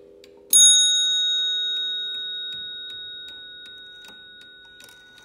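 Antique Waterbury mantel clock striking once on its brass bell about half a second in; the high, clear ring fades slowly over several seconds. The movement ticks about twice a second throughout, under the last of a low coil-gong ring.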